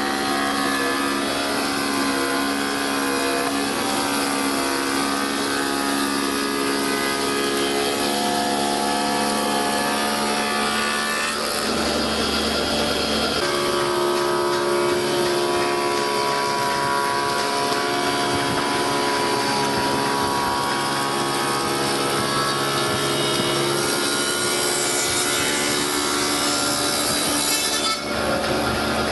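Spindle moulder running, its spinning cutter shaping a wooden workpiece: steady machine tones over the noise of wood being cut. The tone pattern shifts about twelve seconds in.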